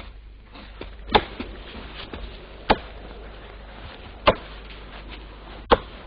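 Four sharp knocks, evenly spaced about a second and a half apart.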